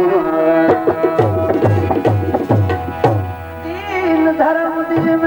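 Tabla playing for a Sufi folk song: sharp strokes with deep bass strokes that bend in pitch, over a steady held drone. A bit past halfway the drumming thins out and a wavering melody line comes in over the drone.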